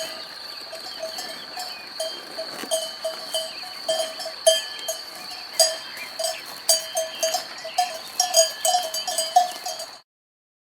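Cowbells clanking irregularly, several strikes a second, over a steady high background tone. The sound stops abruptly near the end.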